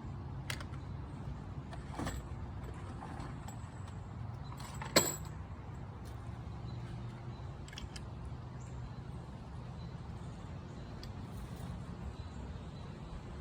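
Scattered small metallic clicks and rattles of a CO2 BB pistol being handled while its CO2 cartridge is changed, with one sharp click about five seconds in, over a steady low hum.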